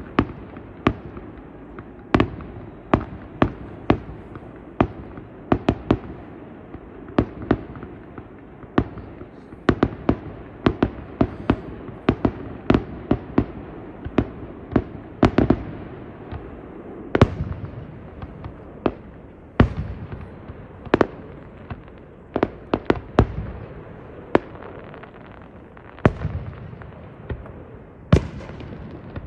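Fireworks going off: a long, irregular string of sharp bangs, sometimes several a second, over a continuous rumble between them.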